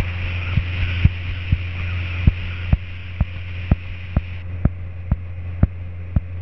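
Cessna 172P's four-cylinder engine and propeller droning steadily in flight inside the cabin, with a sharp click repeating about twice a second.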